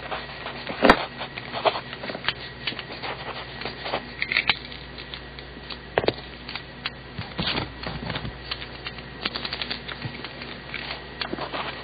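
BIC mechanical pencil with 0.7 mm lead writing on paper: irregular scratching strokes and small ticks of the lead, with one sharper click about a second in, over a low steady hum.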